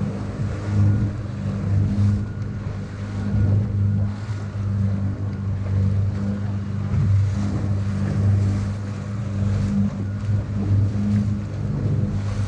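Small wooden tour boat's engine running steadily under way, a low drone, with water rushing along the hull.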